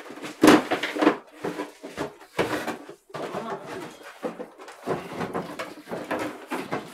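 Irregular crinkling, clicking and knocking of plastic and cardboard toy packaging being handled and opened.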